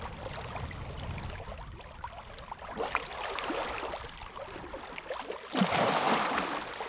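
Water sloshing and splashing around a man wading through muddy shallows, then a sudden heavy splash about two-thirds through as a hooked arapaima thrashes at the surface beside him.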